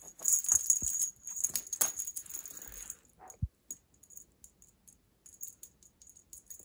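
A cat wand toy with ribbon streamers being shaken and swished, rattling and jingling busily for about three seconds, then only a few faint rattles. A short low sound about three and a half seconds in.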